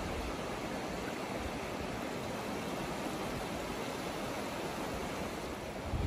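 Small, gentle sea waves washing over shallow water at the shoreline, an even steady hiss of surf.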